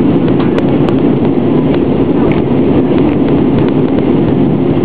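Steady roar of a jet airliner in flight, its engines and airflow heard from inside the passenger cabin, with a few faint clicks.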